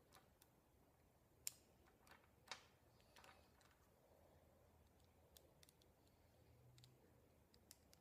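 Small magnetic balls clicking faintly as they snap onto one another while being wrapped around a pencil: a few scattered sharp clicks, the sharpest about one and a half seconds in, otherwise near silence.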